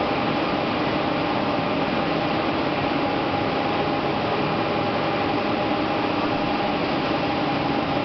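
Steady, unchanging machinery noise of a running aluminium rod continuous casting and rolling plant: an even noise with a couple of faint steady hums.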